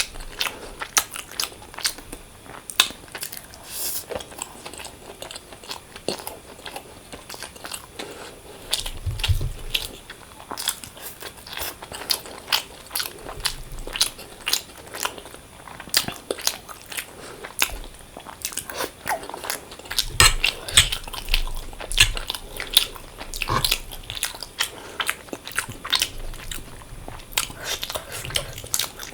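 Close-miked eating: a person chewing and biting food, with many sharp, irregular clicks and crunches.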